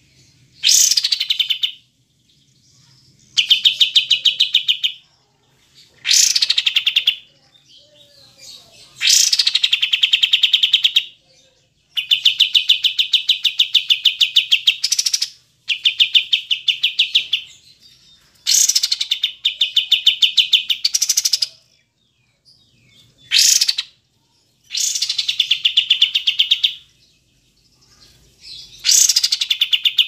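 Kapas tembak bulbul singing: about a dozen loud phrases, each one to three seconds of fast rattling repeated notes, separated by short pauses.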